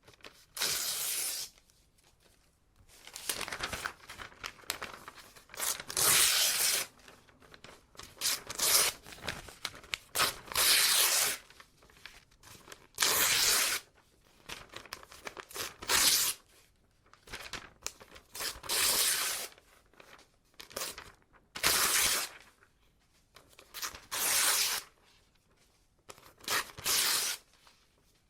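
Paper being ripped again and again: a series of separate tears, each lasting about half a second to a second and a half, with short pauses and faint rustling of the paper between them.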